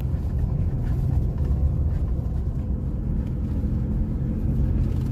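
Steady low rumble of a car driving along a road, engine and tyre noise heard from inside the cabin.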